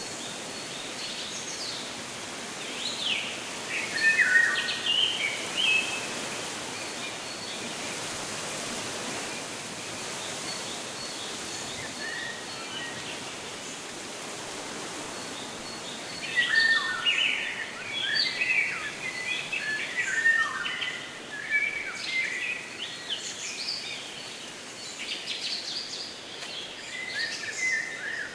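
Small birds chirping and calling over a steady background hiss: a short flurry of calls a few seconds in, then quieter, then a busier stretch of overlapping chirps from a little past halfway to the end.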